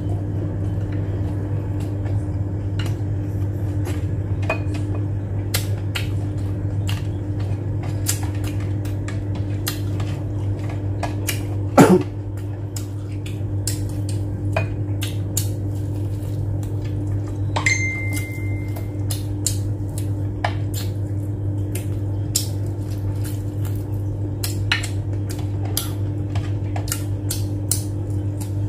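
Close-up eating sounds: chewing and mouth clicks, with fingers tapping and scraping on a plate and bowl as food is picked up by hand. A steady low hum runs underneath. There is a short falling squeak about twelve seconds in and a brief high tone a few seconds later.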